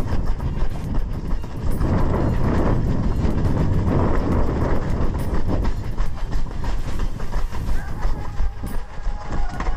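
Running footsteps on gravel and a sandy path, with wind rumbling on a head-mounted action camera's microphone.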